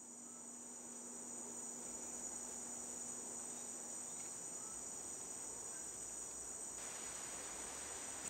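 Insects trilling steadily in a continuous, high-pitched ringing chorus.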